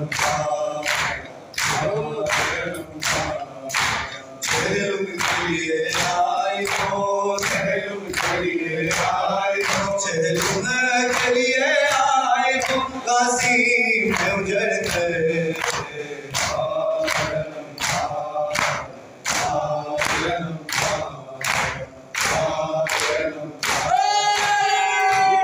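Men's chorus chanting a nauha of mourning with a lead reciter, over rhythmic open-handed chest-beating (matam) in unison, about two slaps a second.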